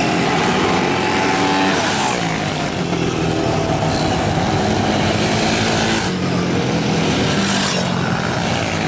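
Engines of several 131cc racing automatic scooters running and revving as they ride past, their pitches rising and falling over one another.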